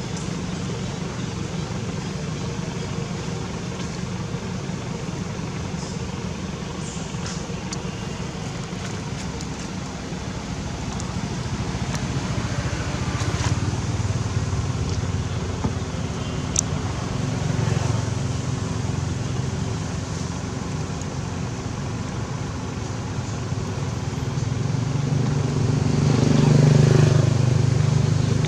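Steady engine hum of motor traffic, growing louder near the end as a vehicle passes close by.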